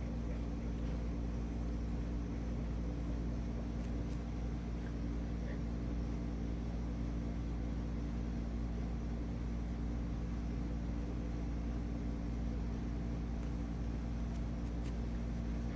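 Steady, unchanging machine hum, a few even tones over a low rumble, like a fan or other motor running.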